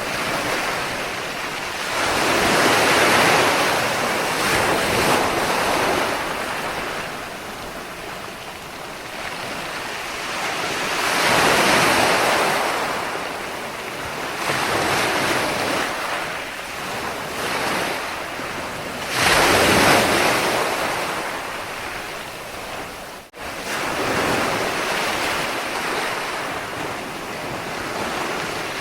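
Ocean waves breaking on the shore, the surf rising to a loud wash about every eight seconds and ebbing between. A sudden momentary dropout falls late in the stretch.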